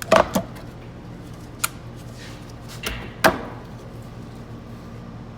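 Sharp clicks and knocks of hard parts being handled and seated while a valve body is fitted into an automatic transmission: two close together at the start, one about one and a half seconds in, and two more around three seconds in, the last the loudest. A low steady hum runs underneath.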